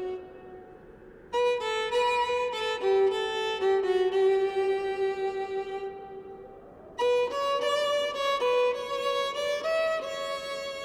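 Background music: a slow melody on a solo violin in two phrases, the first coming in about a second in and the second about seven seconds in, each note held and the phrases fading away.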